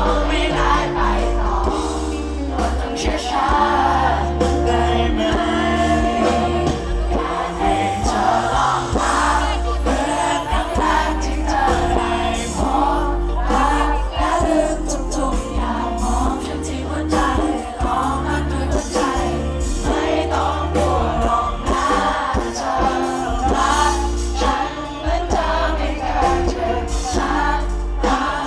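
A male singer singing a Thai pop song live with a band over a concert sound system, heard from within the audience, with a steady bass line under the voice.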